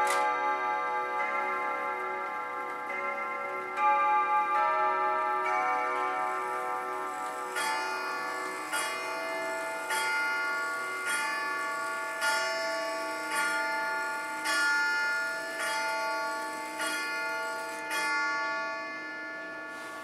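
Mechanical clock movement's hammers striking long chime rods. It plays the last notes of a chime tune on several rods, then strikes the hour on one rod ten times, about a second apart, each stroke ringing on.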